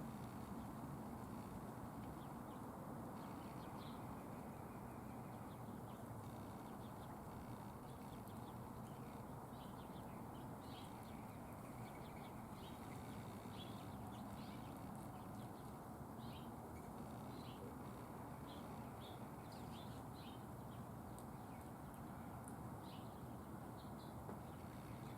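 Small birds at a feeder chirping: many short, high chirps scattered irregularly, over a steady low background rumble.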